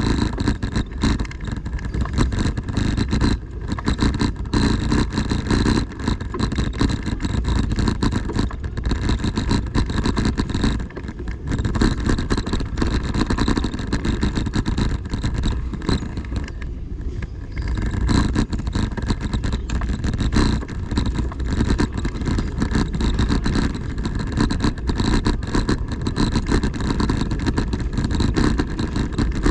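Loud, steady rumble and hiss from a camera in motion along a cobbled city street, dipping briefly twice.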